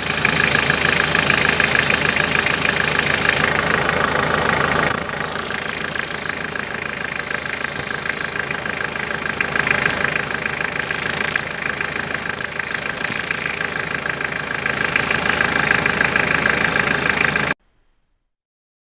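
Mitsubishi L200 Outdoor turbodiesel idling while its brown turbo control valve makes a constant noise. The owner is unsure whether the valve's diaphragm has failed; the faulty valve leaves the turbo inoperative and lights the check-engine light. The sound cuts off abruptly near the end.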